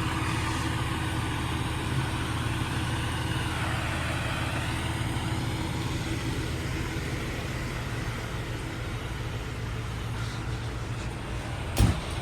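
Fire engine's diesel engine idling steadily, with one sharp thump near the end.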